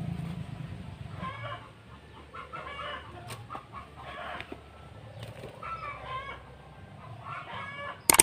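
Chickens clucking and calling in the background: a string of short calls about a second apart. A single sharp click comes near the end.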